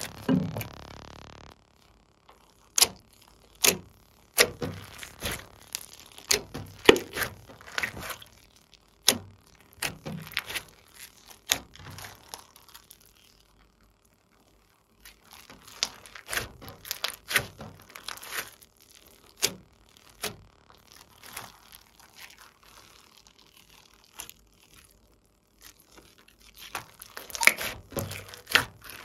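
Glossy slime being stretched, poked and squeezed by hand, giving scattered sharp clicks and pops as trapped air bubbles burst, in clusters with short quiet gaps. A low thump comes right at the start as the glass dish is lifted off the slime.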